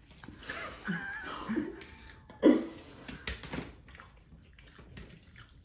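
Wet squelching of bare hands kneading rice and fish curry on steel plates, with small clicks and eating sounds. A brief louder noise comes about two and a half seconds in.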